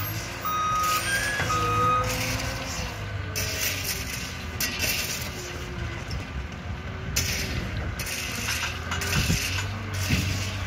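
Skid-steer loader's diesel engine running, its pitch rising and falling as it works, with its backup alarm beeping twice in the first two seconds.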